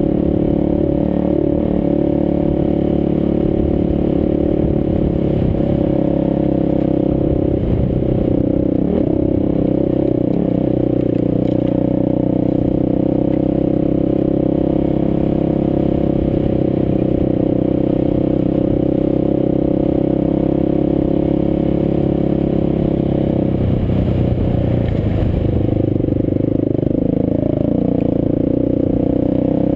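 Dirt bike engine running steadily while riding over rough ground. Its note wavers up and down briefly about eight seconds in and again around twenty-four seconds in.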